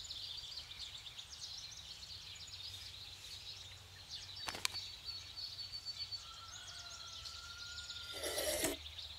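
Rural ambience of many small birds chirping, with a few drawn-out whistled notes. There is a sharp click about halfway through, and a brief louder rush of noise near the end.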